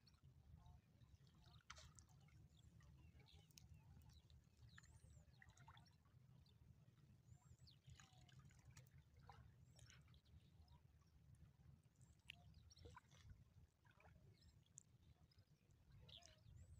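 Near silence: a faint steady low rumble with scattered faint ticks.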